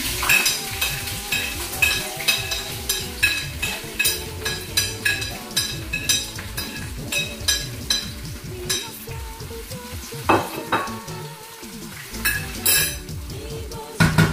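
A spoon knocking and scraping against a plate and pan, about two to three clicks a second for the first nine seconds, then a few scattered louder knocks, over the sizzle of food frying in the pan.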